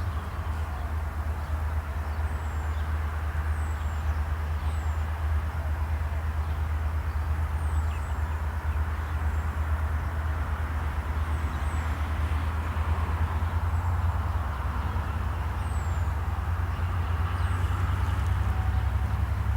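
Steady low rumble of Roots-blown EMD diesel locomotives working a train, growing slightly louder near the end, with short high bird chirps scattered through it.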